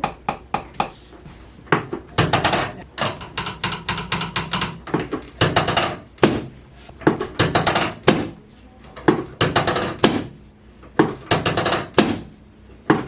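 Rapid percussive tapping on the patient's body in repeated bursts of about a second, with short pauses between, from a chiropractic tapping treatment.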